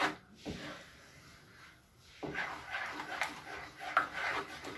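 Wooden spoon stirring and scraping a thick tomato sauce around a non-stick frying pan, with a soft knock at the start, a lull, then repeated rubbing strokes from about two seconds in.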